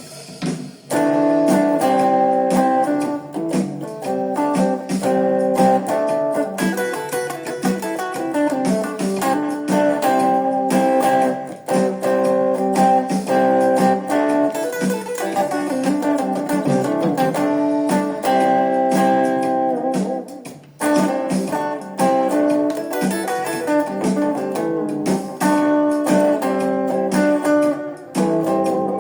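Guitar music: a plucked guitar playing a melody with chords, coming in about a second in after a quiet start.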